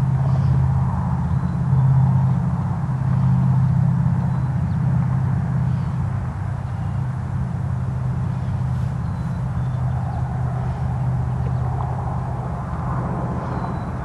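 STH-10 tornado siren's rotor still spinning as it coasts down after shutdown, giving a low steady hum over a rough rumble. It is a little louder in the first few seconds.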